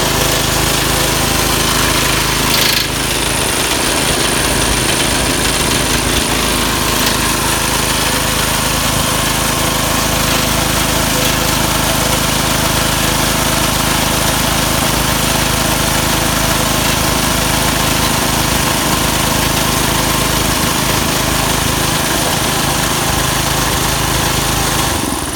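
Small gasoline engine driving an air compressor pump, running steadily. About three seconds in there is a brief sharp change in the sound, after which a thin high whistle carries on over the running.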